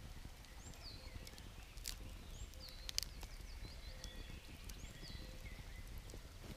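Wood campfire crackling, with a few sharp pops, the loudest about three seconds in. Small birds chirp in short falling notes in the background.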